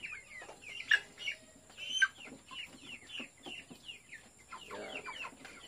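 Young broiler chickens peeping and chirping: many short, high, falling calls, several a second. Two sharp knocks, the loudest sounds, come about one and two seconds in.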